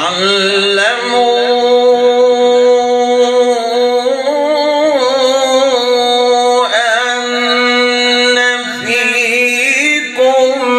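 Male voice reciting the Quran in tajweed style, drawing out one long melodic phrase with held notes and ornamented turns. It starts suddenly and breaks briefly about ten seconds in before going on.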